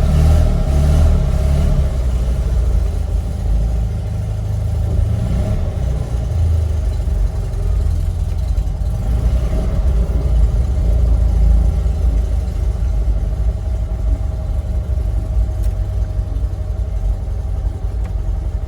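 A 1970 Fiat 500's small air-cooled two-cylinder engine running as the car is driven, heard from inside the car. It revs up and eases off, loudest in a swell about two-thirds of the way through.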